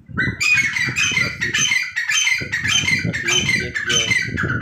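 Caged partridges (teetar) calling: a fast, rhythmic run of loud, high-pitched notes repeated several times a second, pausing briefly near the middle, over low thuds and rustling.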